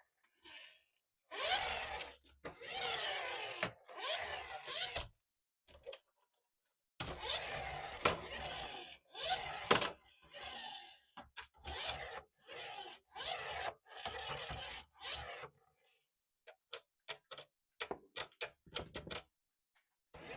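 Toy packaging being handled, crinkling and rustling in irregular bursts, followed near the end by a run of quick clicks and taps.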